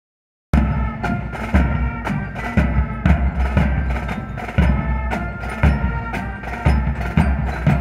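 Marching band playing a march: drums keep a strong, even beat about twice a second under sustained band tones. It starts about half a second in.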